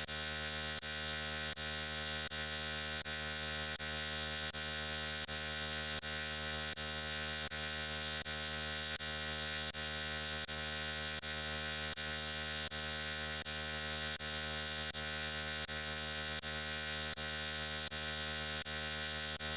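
A steady, harsh electric buzzing hum that repeats as a short loop, with a brief dropout about every three-quarters of a second.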